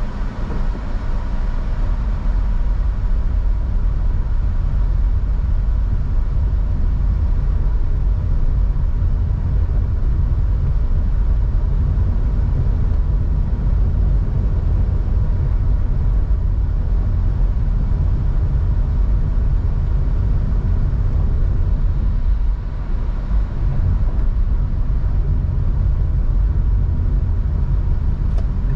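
A vehicle driving: steady low road and engine rumble, with a faint steady high tone above it.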